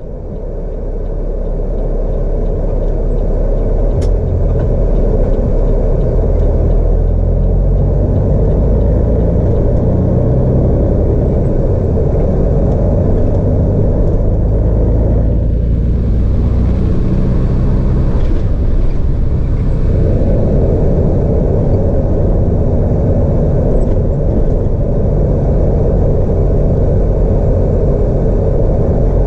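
Semi truck running down the road, heard as a steady low engine drone with road rumble that fades in at the start. The engine pitch changes a few times near the middle.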